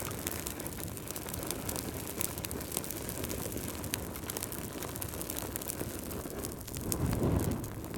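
Wood fire burning in a fireplace: a steady low rumble of flames with frequent sharp crackles and pops from the logs, and a louder low whoosh of flame about seven seconds in.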